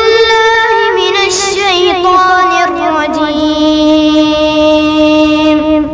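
A young boy chanting a Quran recitation in a melodic style, his voice wavering through ornamented turns, then settling into one long held note that stops just before the end.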